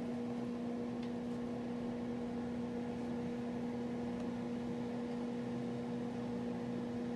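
Steady electrical hum made of a low tone and a higher one, over a faint even hiss, unchanging throughout.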